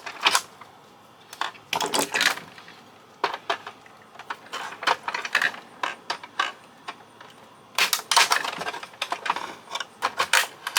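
Small metal and plastic fax-machine parts clicking and clattering as they are handled and pulled apart. The knocks are scattered at first, then come thick and fast about eight seconds in.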